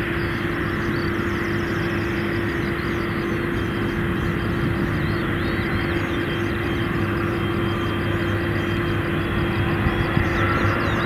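Twin GE90 turbofans of a Boeing 777-300ER at taxi power: a steady jet whine over a broad rumble, growing slightly louder near the end as the airliner comes closer.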